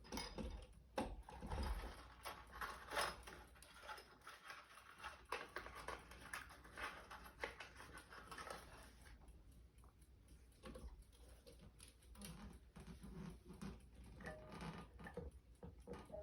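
Faint, irregular clicks, taps and rustling of small parts being handled, as window-shade brackets and hardware are worked by hand; busier in the first half, sparser later.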